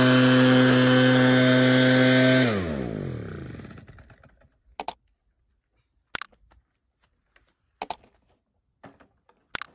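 Echo PB-8010 backpack blower's two-stroke engine running steadily, then cutting out about two and a half seconds in and winding down to a stop: the engine dying on its own while running, the intermittent stalling fault the blower has. A few sharp clicks and knocks follow.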